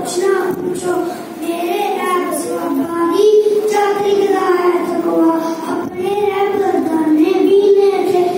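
A young boy singing into a microphone, one voice holding long, gently wavering notes in a steady melodic line.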